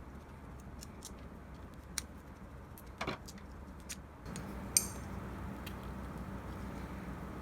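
A few scattered light clicks and clinks of small parts and tools being handled while an espresso machine's pump is swapped out, with a short cluster about three seconds in and a sharper click near five seconds.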